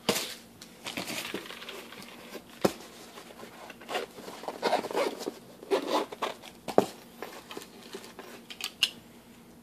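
Hands rummaging through packaging in a cardboard box: plastic bags and paper envelopes rustling and crinkling, with a few sharp clicks and knocks from hard sunglasses cases being handled.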